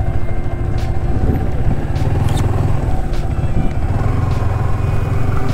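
Motorcycle engine running steadily while riding, a constant low rumble with a few light knocks.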